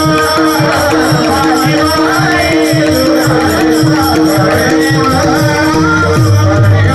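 Warkari devotional music led by pakhawaj drumming with deep bass strokes, over a steady held drone, with a wavering sung or played melody and hand cymbals keeping time.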